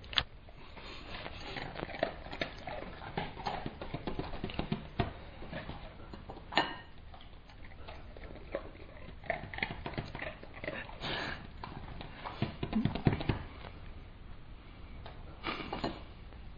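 A dog eating food held to its mouth by hand: irregular chewing and mouth clicks, mixed with light knocks and taps on the table. A few louder knocks stand out here and there.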